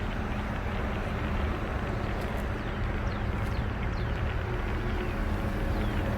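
Steady low rumble of idling vehicle engines with a constant hum, and a few faint short falling chirps in the middle.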